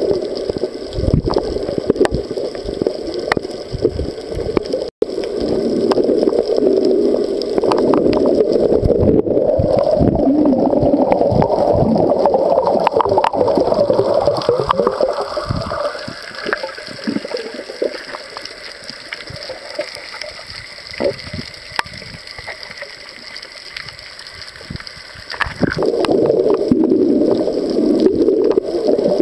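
Muffled, continuous water noise and gurgling picked up by a camera filming underwater, quieter for several seconds past the middle before rising again near the end.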